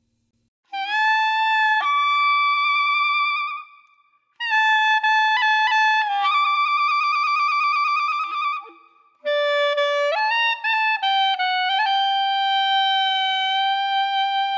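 Background music: a solo wind instrument, clarinet-like, playing a slow melody of long held notes with slight vibrato, in three phrases separated by short breaths.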